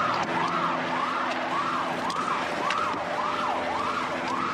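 Police car siren on a fast yelp, its pitch rising and falling about twice a second, over a steady low hum.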